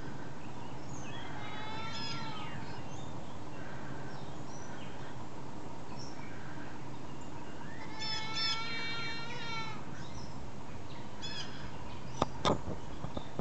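A lone goat bleating in two long, sorrowful cries a few seconds apart: calling out, unhappy at being left alone in its pen. Small birds chirp faintly between the cries, and two sharp clicks sound near the end.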